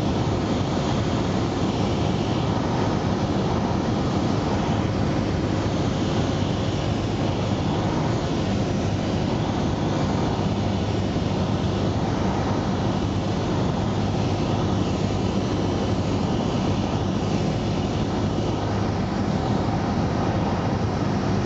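Cessna 172's piston engine and propeller droning steadily, heard from inside the cockpit together with the rush of air over the cabin.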